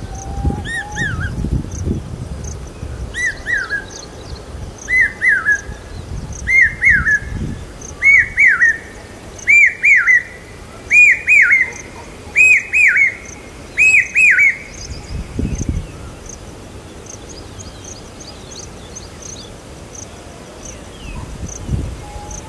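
Common hawk-cuckoo (brain-fever bird) giving its loud whistled call: a phrase of a few shrill notes repeated about nine times, each one higher and louder than the last, then breaking off suddenly about two-thirds of the way through.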